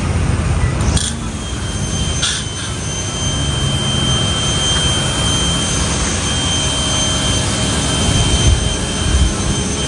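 Pressure washer running while spraying down a motorcycle: a steady rush of water spray with a thin high-pitched whine. There are a couple of short clicks about one and two seconds in.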